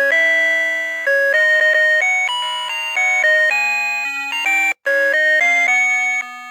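Citizen Rhythm Snoopy R725 alarm clock playing one of its electronic melody alarms: a two-part tune of clean beeping tones, a melody over a bass line, which cuts out for an instant about two-thirds of the way through.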